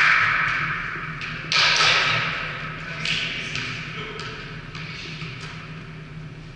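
Volleyball thuds echoing in a large gym hall: one sharp knock about a second and a half in that rings out slowly, and a softer one about three seconds in, over a steady low hum.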